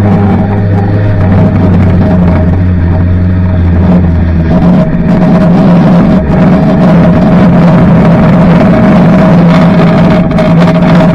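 Banger racing car's engine running hard, heard from inside its stripped-out cabin, loud and steady. The engine note shifts about four and a half seconds in.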